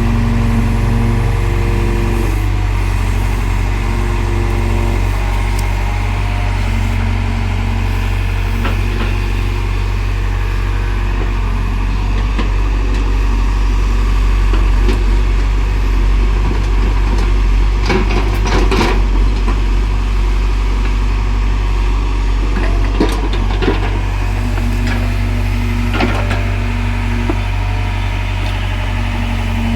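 Excavator's diesel engine running steadily at working speed, with a few sharp knocks, the loudest cluster a little past the middle, as the bucket digs and handles soil.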